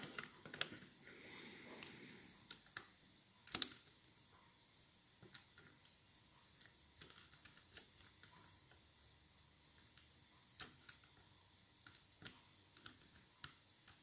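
Faint, irregular small metallic clicks of a Brinks Discus combination padlock's number wheels being turned and probed with a thin metal tool while the lock is held under turning tension, as each wheel is checked for its gate. One sharper click comes about three and a half seconds in, another about ten and a half seconds in.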